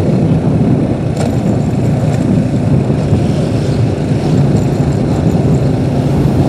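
Motor vehicle engine running at a steady speed, its hum mixed with constant road and wind noise.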